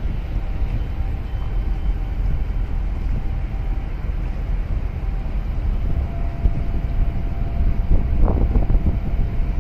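Wind buffeting the microphone over the steady low rumble of a moving boat on open water, with a faint steady hum behind it and a few louder gusts near the end.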